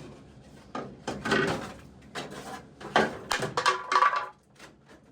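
Knocks, clicks and scrapes of a whole-house humidifier's plastic housing being handled, with louder clattering about a second in and again from about three to four seconds in.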